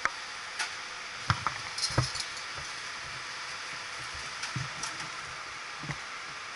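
Steady hiss of wind and motion on the microphone, broken by a scatter of short knocks and thumps, the loudest about a second and two seconds in, typical of a handheld or bar-mounted camera being jostled while riding.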